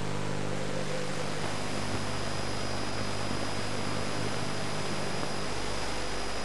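Steady hiss of noise on a weak, long-distance TV reception's sound, with a thin, high steady whine and a low hum that fades out about a second in.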